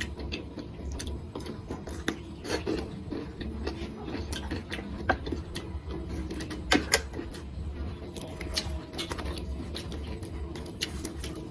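Close-miked eating sounds: chewing with irregular small clicks and taps, over a steady low hum.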